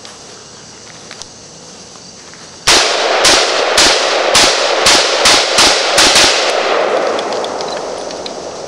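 Colt AR-15 rifle fired rapidly from the hip, about nine shots at roughly three a second, with a long echo fading after the last shot. The string of fire stops suddenly, which is where the rifle jams.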